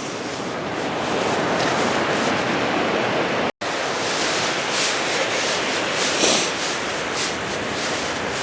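Steady rushing noise of wind and breaking surf, with a few brief rustles of handling near the middle and end.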